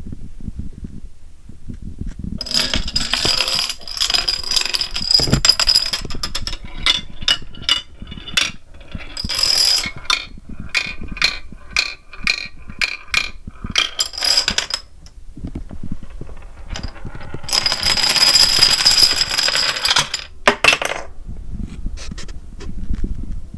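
Plastic dominoes toppling in a chain. There are two long runs of fast rattling, with a string of separate sharp clicks between them as the dominoes fall one by one.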